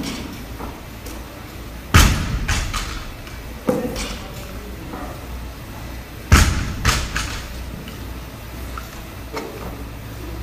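A loaded barbell with bumper plates dropped onto a rubber gym floor twice, about four seconds apart; each landing is a heavy thud followed by a couple of quick lighter bounces. A lighter knock comes between the two drops.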